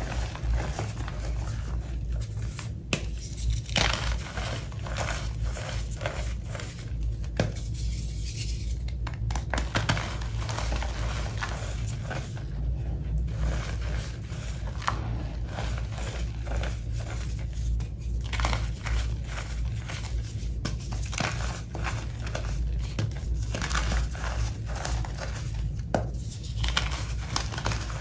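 Hands crushing and crumbling chunks of reformed gym chalk into loose chalk powder: a dense, irregular run of crisp crunches and crackles. A steady low hum runs underneath.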